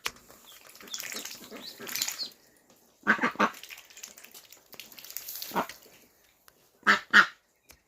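Mother duck giving short, loud calls: a cluster about three seconds in, one more a couple of seconds later, and two quick calls near the end, with fainter high peeps of her duckling in the first two seconds.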